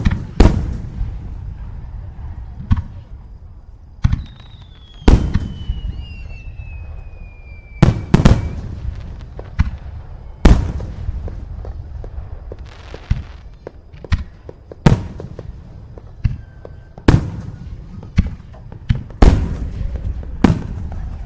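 Fireworks going off: an irregular series of loud, sharp bangs, more than a dozen, each trailing off in a rumbling echo. A single descending whistle sounds from about four seconds in until about eight.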